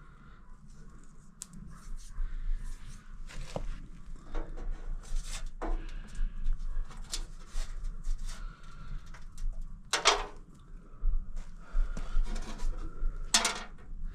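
Sheet-metal dryer parts being handled and taken apart by hand: irregular clicks, scrapes and light rattles, with a few sharper knocks near the middle and near the end.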